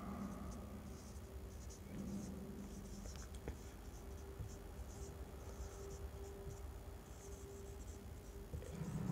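Marker pen writing on a whiteboard: faint, irregular short scratchy strokes as a line of handwriting is put down.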